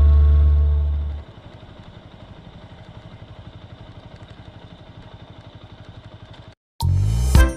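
A sustained music chord dies away in the first second. Then a motorcycle engine idles faintly with a fast, even pulse. It cuts off, and guitar music starts near the end.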